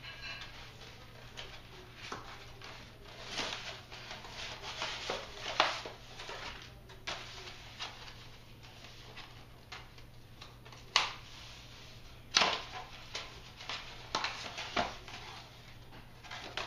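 Protective paper and foam packing being pulled off a new mountain bike's fork: irregular rustling and crinkling, with a few sharp, louder snaps.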